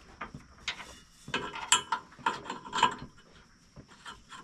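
Loose metal hardware and hand tools clinking and clanking as they are handled, a cluster of sharp ringing clinks from just over a second in to about three seconds.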